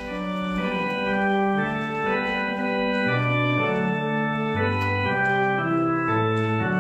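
Organ playing the introduction to a hymn: sustained full chords that change about once a second over a stepping bass line.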